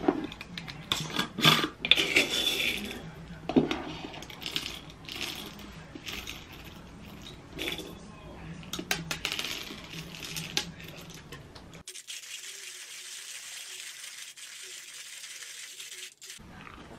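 Metal screw lid twisted off a glass jar of roasted coffee beans, then beans scooped with a plastic spoon and poured into a wooden hand coffee grinder, with many sharp clicks and rattles of beans on glass and metal. It goes quieter for the last few seconds, leaving only a faint hiss.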